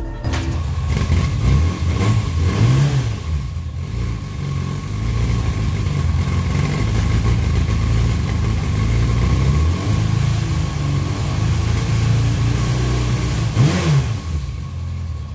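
1992 Yamaha Seca II's four-cylinder engine running on its stock exhaust, its throttle blipped so the revs rise and fall about three seconds in and again near the end.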